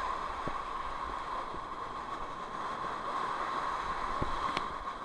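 Rushing river whitewater around a raft, a steady wash of water noise, with a few short knocks.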